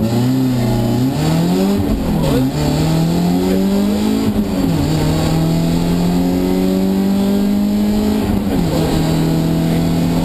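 BMW 318is E30 rally car's four-cylinder engine heard from inside the cabin, accelerating hard through the gears: the engine note climbs and drops at upshifts about two and a half and four and a half seconds in, then holds high and slowly rises, with a short dip near the end.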